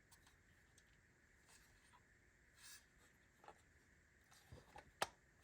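Near silence with a few faint clicks and taps from small switch parts being handled, the sharpest about five seconds in.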